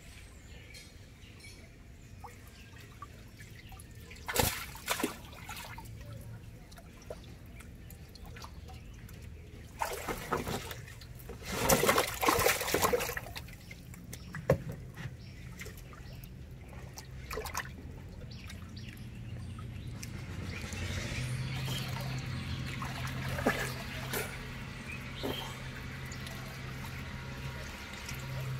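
Water splashing and sloshing as a man wades and fish are handled in water, in a few short bursts with the loudest cluster about a third of the way through. A low steady hum runs underneath and grows louder in the last third.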